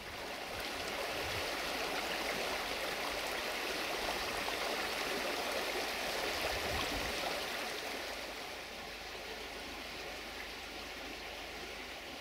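Small shallow brook flowing, its water rushing and babbling steadily over the stream bed. It swells in the first second and eases a little after about eight seconds.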